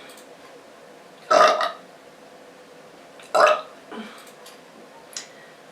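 A woman burping: two short burps about two seconds apart, with a fainter brief sound soon after the second.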